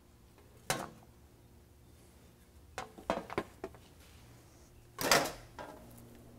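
Handling noises at a workbench: a few separate knocks and clinks of parts set down on a metal drip tray, with a louder, longer clatter about five seconds in, over a faint steady hum.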